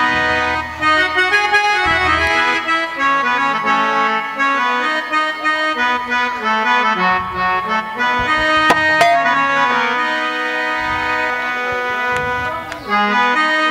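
Instrumental music interlude: a reedy keyboard melody of sustained notes moving step by step, with a couple of sharp knocks about two-thirds of the way through.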